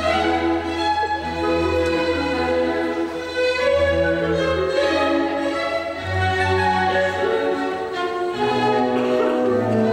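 Orchestral classical music led by bowed strings, playing steadily throughout.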